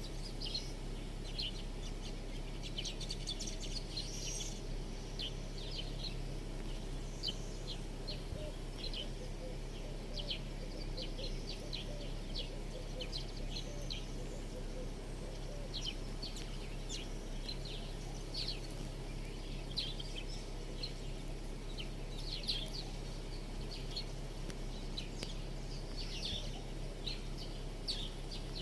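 Small birds chirping continually, many short high chirps overlapping, over a steady low hum.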